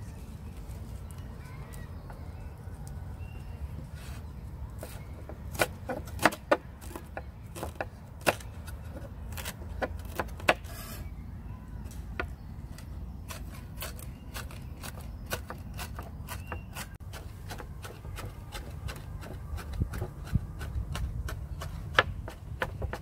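Chef's knife chopping fresh herbs on a wooden cutting board: irregular sharp taps of the blade on the board, coming faster in the second half, over a steady low rumble.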